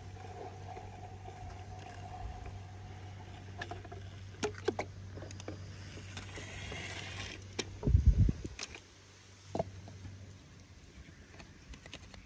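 Toy monster truck being handled and knocked about: scattered plastic clicks and knocks, with a loud heavy thump about eight seconds in, over a steady low hum that stops about ten seconds in.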